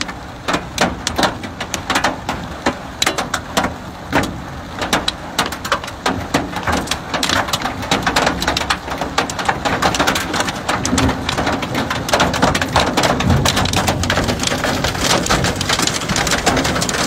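Hailstones pelting down and striking the ground in a dense, irregular patter of sharp impacts over the rush of a heavy hailstorm.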